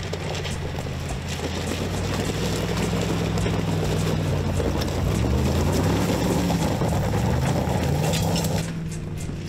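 Mercedes-Benz G-Class engine working under load as the SUV crawls up a loose rocky slope, its revs rising and falling in the middle, with tyres grinding over loose stones. The sound drops abruptly quieter near the end.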